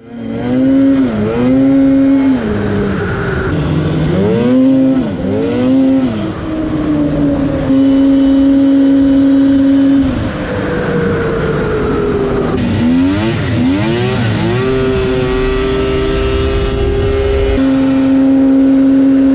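Snowmobile engine running at trail speed, its pitch dipping and sweeping back up several times as the throttle is eased and reapplied, and held steady for seconds at a time in between.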